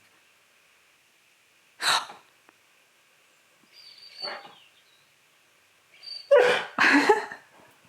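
Husky-malamute dog giving short barks and vocal noises: one sharp burst about two seconds in, a softer one around four seconds, and two loud ones back to back after six seconds.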